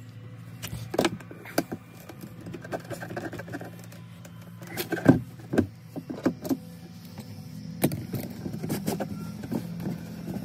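Knocks and clatter of hands working at a plastic hose fitting and drain pipe under a pontoon boat's live well, over a steady low hum.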